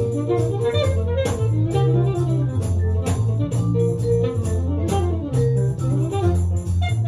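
Recorded music played back through a pair of large hi-fi loudspeakers, with a strong bass line stepping from note to note under the melody.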